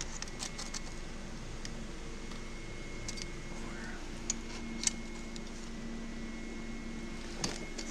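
Steady machine hum of garage room tone, with a few faint ticks and taps.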